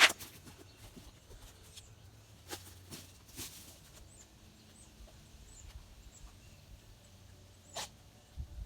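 A sharp knock right at the start, then a few fainter knocks and clicks, over faint high chirps of a small bird.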